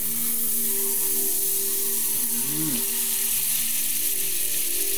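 Butter sizzling steadily as it melts in a hot frying pan.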